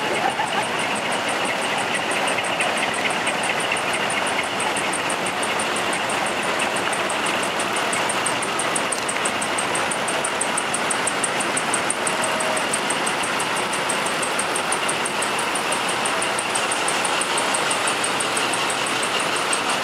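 Parked trucks' diesel engines idling, a steady, unchanging running noise. A fast, regular high ticking and a thin steady whine run along with it.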